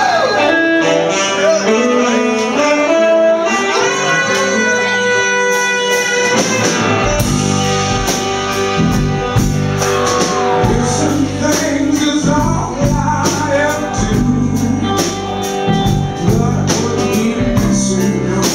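A live band playing the instrumental intro of a song. It opens with sustained melodic lines, and about seven seconds in the bass and drums come in with a steady beat.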